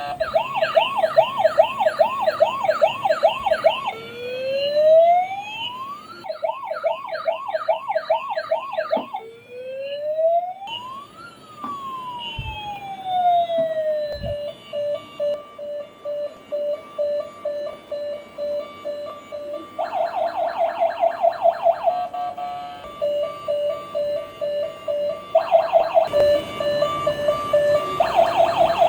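Electronic police siren of a children's toy police bike, cycling through its patterns: a fast warbling yelp, slow rising and falling wails, and a steady pulsing beep tone, then back to the fast warble.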